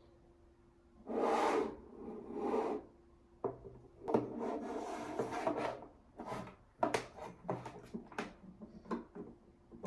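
Hand-handling noise of lamp parts and packaging: scraping and rubbing in two longer swells, then a run of short, sharp clicks and knocks in the second half.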